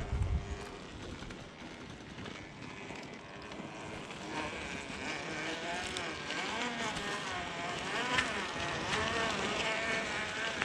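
Brushless motor and gear drive of an RC rock crawler whining, the pitch rising and falling as the throttle is worked, with a low thump right at the start.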